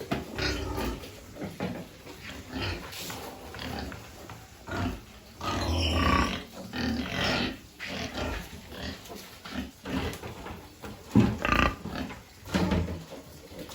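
Piglets grunting and squealing in irregular bursts, loudest around six seconds in and again from about eleven to thirteen seconds.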